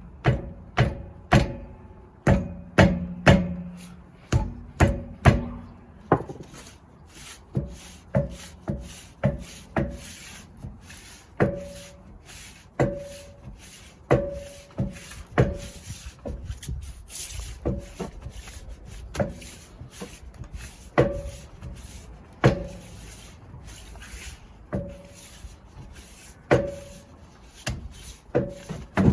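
Repeated hard blows striking a Fiat 500 alloy wheel to shock it loose from the hub it has corroded onto, each knock with a short ringing note. About two blows a second at first, then spaced irregularly about a second apart.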